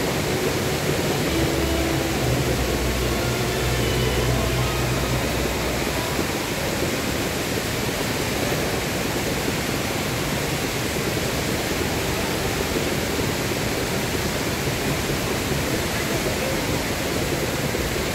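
Rain Vortex, a seven-storey indoor waterfall at Jewel Changi Airport, pouring in one heavy column from the roof opening into its basin, a steady even rush of falling water.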